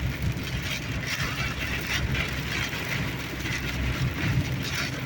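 Steady road noise inside a moving car: a low rumble of engine and tyres with a hiss of wind rushing past in gusty storm wind.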